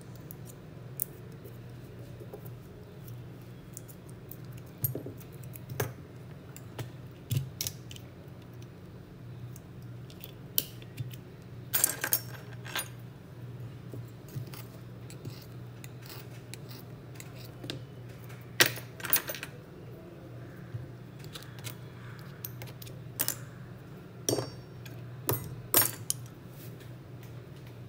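Small metal tools clicking and tapping against hard surfaces at irregular intervals, a couple of them loud, over a steady low hum.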